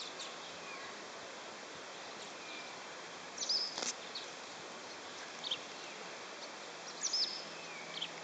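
Outdoor ambience with a steady background hiss and small songbirds chirping in short, high calls, in clusters about three and a half seconds in and again about seven seconds in.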